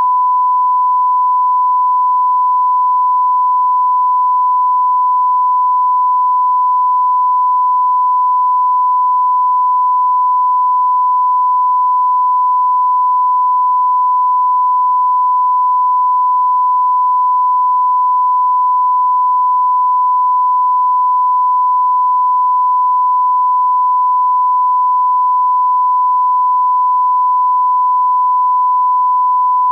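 A steady electronic beep tone: a single pure, unwavering high-pitched note held unbroken, like a test tone.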